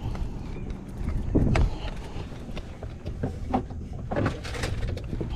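Scattered knocks, scrapes and clatter of a fish and gear being handled on a boat, loudest about a second and a half in, over a steady low rumble.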